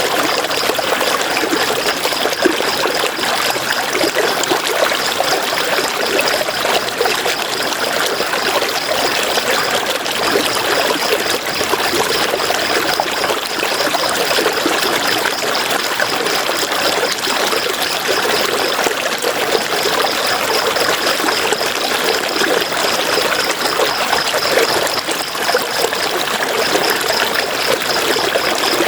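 River water flowing and trickling in a steady rush. Over it runs a high, fast pulsing trill that drops out briefly twice.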